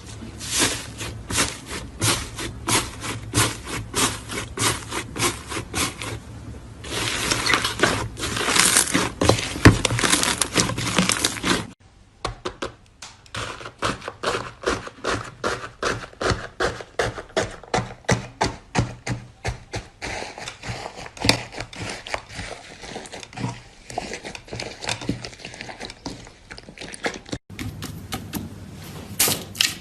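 Slime being squeezed and poked by hand, giving a run of clicks and pops: about two a second at first, a dense crackling stretch in the middle, then quicker, softer clicking after an abrupt cut about twelve seconds in, with another cut near the end.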